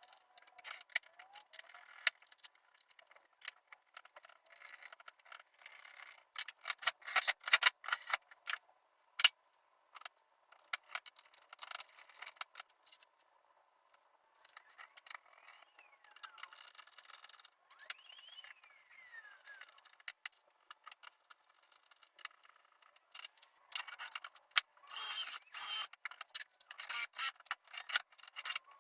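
Irregular clicking, ticking and rattling of small metal parts and hand tools being worked, with two brief whines that rise and then fall in pitch about halfway through.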